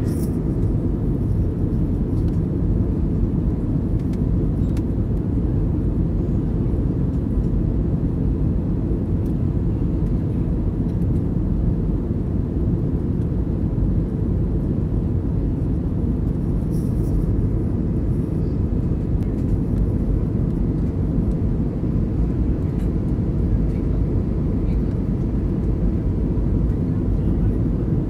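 Steady in-cabin noise of an Airbus A321 climbing after takeoff: engine and airflow noise heard at a window seat over the wing. It is deep and even, with a faint steady hum above it.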